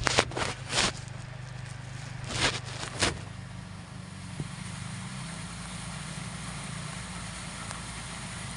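A cat's low, steady, snore-like rumbling breath, which the owner fears is a sign that it is unwell. There are a few sharp clicks in the first three seconds.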